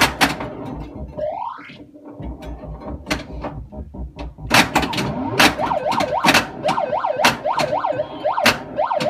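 Bally Space Invaders pinball machine in play. Sharp mechanical clacks from the ball and playfield mechanisms mix with the machine's electronic sound effects: a rising sweep about a second in, then a siren-like warble repeating about twice a second from about halfway.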